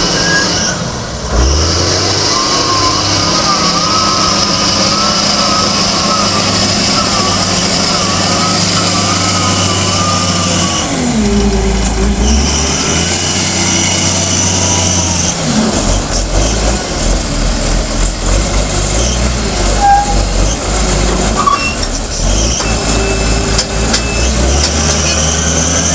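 Lonking CDM833N wheel loader's diesel engine running under load, its engine note rising and falling several times as it drives and lifts the bucket to dump sand into a dump truck.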